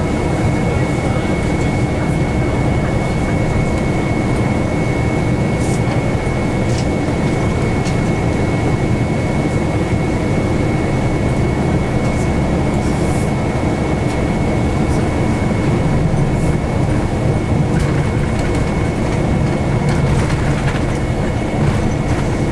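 Steady rumble of a city bus driving, heard from inside the passenger cabin. A thin high-pitched tone runs through it, and a few faint clicks or rattles come through now and then.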